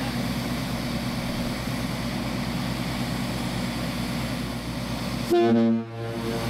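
Steady drone of a portable engine-driven air compressor. About five seconds in comes a loud, short blast of about half a second from a compressed-air warning horn.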